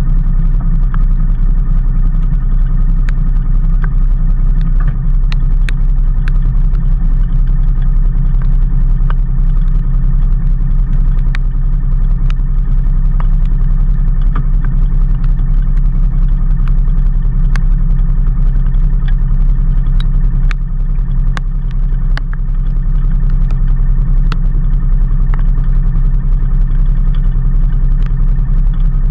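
A vehicle engine running steadily under way, with a constant low drone and scattered sharp ticks. The level dips briefly about two-thirds of the way through.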